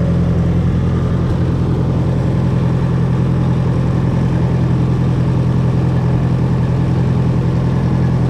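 International 300 tractor engine idling steadily, run to circulate a radiator flush through the cooling system.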